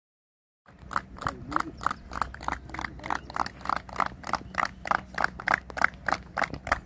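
A line of footballers clapping together in a steady rhythm, about three claps a second, starting just under a second in.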